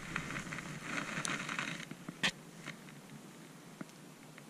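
Rustling handling noise with a few sharp clicks, the loudest a little over two seconds in; the rustle fades after about two seconds, leaving a low hiss.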